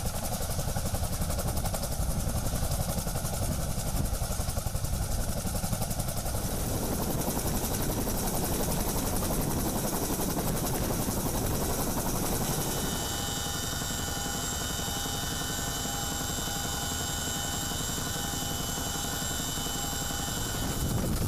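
CH-47 Chinook tandem-rotor helicopter running on the ground with its rotors turning, a steady, dense rotor and turbine noise. About 13 s in the sound becomes steadier and picks up several high whining tones, as heard from inside the cabin by the open rear ramp.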